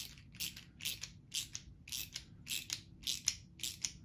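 Quarter-inch ratchet clicking steadily, about three clicks a second, as it screws the firing pin into a muzzleloader bolt.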